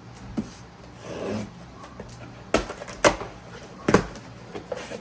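Boxes and packaging being handled on a table: a brief rub or slide, then three sharp knocks as items are set down, with a lighter tap near the end.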